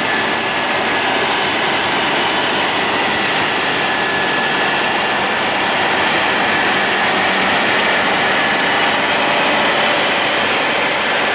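Claas Lexion 740TT combine harvester running close by while cutting wheat: a loud, steady mechanical din with a faint steady whine.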